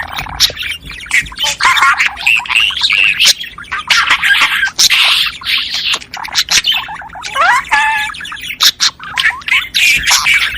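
Budgerigars warbling and chattering: a continuous, fast jumble of chirps, squawks, clicks and gliding whistles.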